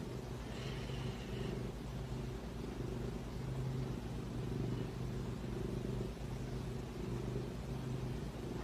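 Domestic cat purring close to the microphone, a low buzzing rumble that swells and eases in even pulses about once a second.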